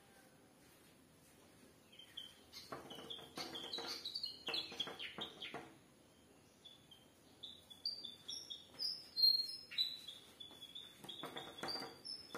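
Small birds chirping in quick strings of short high notes, in two spells, with short scratchy noisy bursts mixed in.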